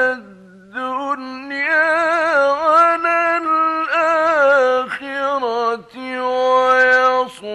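A man recites the Quran in the melodic, chanted mujawwad style. He draws out the words in long phrases with wavering ornaments, and the voice drops low for a brief breath-pause near the start and again just before the end.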